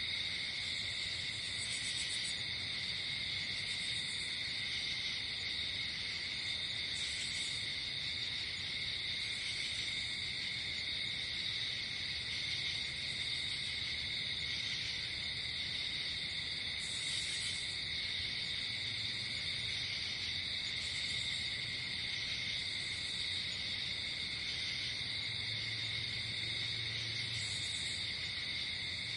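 Night chorus of crickets and other insects trilling steadily, with short higher-pitched insect buzzes every couple of seconds and a faint low tone near the end.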